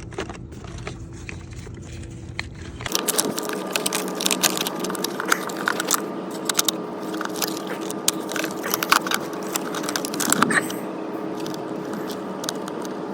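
Metal clinks, scrapes and clicks of hand work on battery hardware, over a steady background hum. The background changes abruptly about three seconds in, and the clicking grows denser after that.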